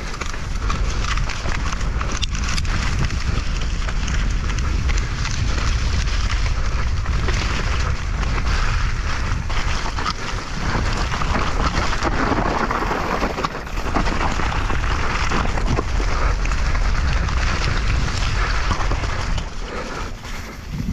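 Continuous wind buffeting on the microphone with a dense, uneven rattle, typical of an on-bike camera on a fast downhill mountain-bike run over rough, muddy ground.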